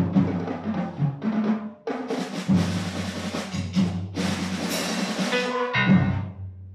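A school ensemble of strings, guitars, keyboards and percussion playing. Rhythmic drum hits run through the first couple of seconds, then a drum roll lasts about four seconds and gives way to a short chord that fades.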